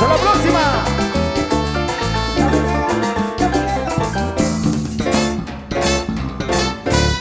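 Cumbia band playing live: an instrumental passage with a melody over bass and a steady percussion beat.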